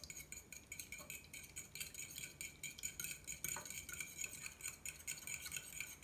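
Metal fork beating raw eggs in a ceramic bowl: a rapid, steady run of light clinks as the tines strike the side of the bowl.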